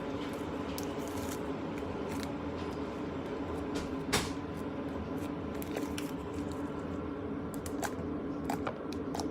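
Quiet handling noises: scattered small clicks and taps, one a little louder about four seconds in, over a steady low hum.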